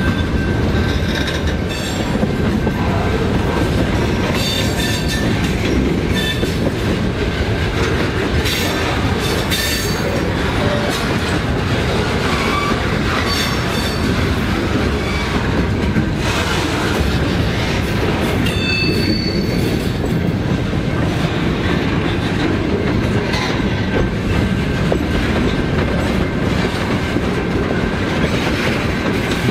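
Freight cars (boxcars and tank cars) rolling past: a steady rumble of steel wheels on rail with clicks over the rail joints, and brief high wheel squeals now and then, the clearest a little past the middle.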